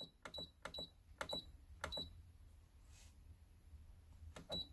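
Cuckoo pressure rice cooker's control panel beeping as its buttons are pressed to set the cooking time: six short high beeps, each with a button click, five of them in the first two seconds and one more near the end.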